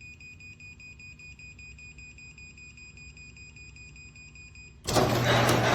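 Chamberlain MyQ garage door hub sounding its rapid electronic warning beep, the alert given before a remotely commanded door moves. Near the end a garage door opener motor starts abruptly, loud, with a low hum.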